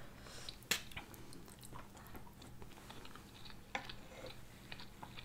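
Faint chewing of paneer masala and rice, with a couple of sharp clicks of spoons against the metal food tray, one just under a second in and another just under four seconds in.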